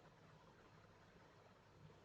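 Near silence: faint room tone with a low steady hum and hiss.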